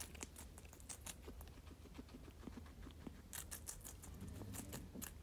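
Guinea pig munching lettuce from its bowl: a faint, irregular run of crisp crunches and clicks, several a second.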